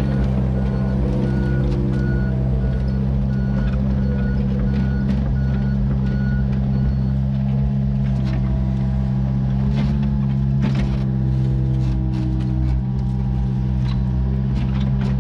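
Komatsu mini excavator's diesel engine running steadily under work, with sharp clanks and scrapes as the bucket works through brick rubble and a tree stump. The clanks cluster past the middle and again near the end. A high beeping alarm sounds about one and a half times a second through the first half.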